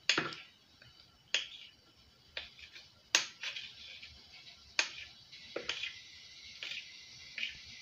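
Kitchen knife blade striking a granite countertop as it cuts through rolled chin chin dough: sharp clicks at uneven intervals, roughly one a second, some followed by softer ticks.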